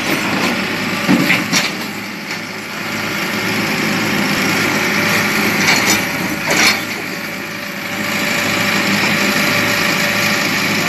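Small wheeled excavator's diesel engine running steadily as it digs, with its bucket giving several short, harsh scrapes against rock and soil about a second in and again around six seconds in.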